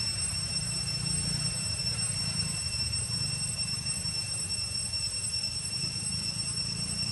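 Steady background noise: a low rumble with a constant thin, high-pitched whine over it.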